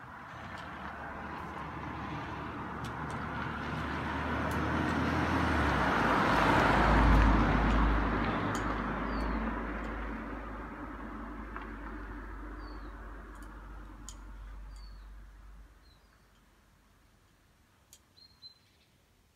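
A passing vehicle: a rushing noise with a low rumble that swells to a peak about seven seconds in, then fades away by about sixteen seconds. Short high bird chirps come through near the end.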